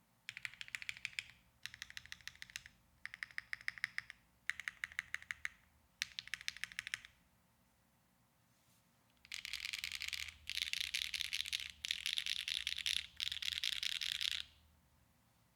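Neo Ergo mechanical keyboard with HMX Cloud linear switches, GMK keycaps on a polypropylene plate, its modifier keys pressed in five short runs of quick keystrokes. After a pause of about two seconds the keys are spammed in four dense bursts of rapid typing.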